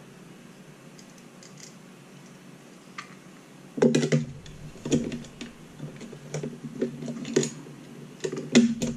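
Irregular clicks and knocks of small hardware and parts being handled on a workbench during assembly, starting about four seconds in.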